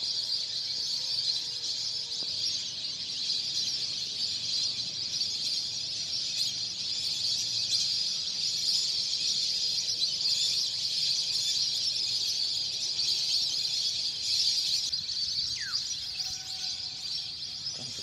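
A dense, steady high-pitched chorus from a large flock of migratory birds calling as they circle overhead, with one falling whistle near the end.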